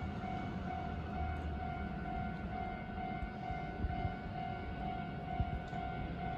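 An electronic warning tone, a steady pitch pulsing in a regular on-off pattern, signalling a train's approach, over a low rumble.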